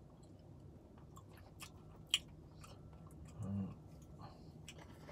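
Close-up chewing of a mouthful of pad thai rice noodles, with a few sharp clicks and a short low hum about three and a half seconds in.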